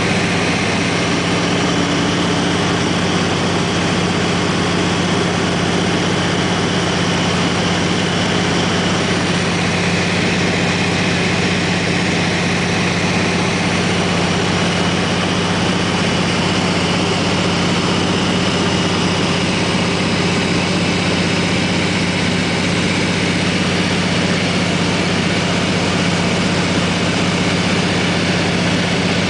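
Floatplane engine and propeller droning steadily in flight, heard from inside the cabin, with a constant low hum and a steady rush of air over it.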